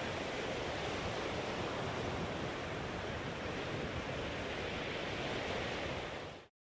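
Rough sea surging and breaking against rocks, a steady rushing wash of surf that fades out near the end.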